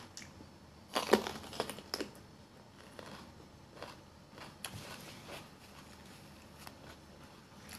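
A person chewing a mouthful of raw green bell pepper: crisp crunches, loudest about a second in and again at about two seconds, then softer crunching.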